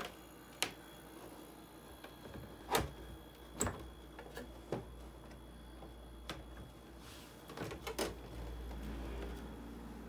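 Sharp plastic clicks and knocks, about six scattered over several seconds, as a Panasonic F-Y101BW dehumidifier's plastic casing and inner parts are handled and fitted back together. A low steady hum runs underneath.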